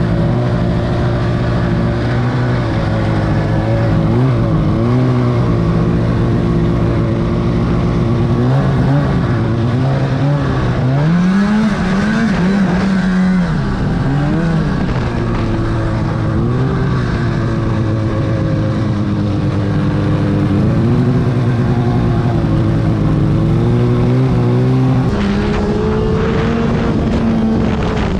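2008 Arctic Cat F1000 Sno Pro snowmobile's two-stroke twin engine running under way, its pitch rising and falling over and over as the throttle is worked, with a step up in pitch near the end.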